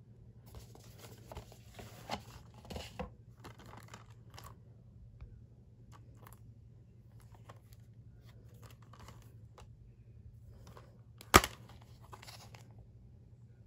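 Plastic Blu-ray case being handled, with rustling and scraping in the first few seconds. About eleven seconds in comes one sharp, loud click as the case snaps open, then a brief rustle.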